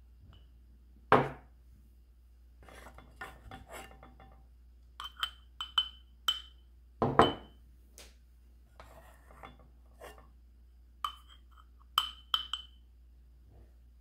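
Metal measuring spoon clinking and scraping against a stainless steel saucepan and small glass mason jars as liquid agar is spooned into the jars, with short ringing clinks and two heavier knocks, about a second in and about seven seconds in.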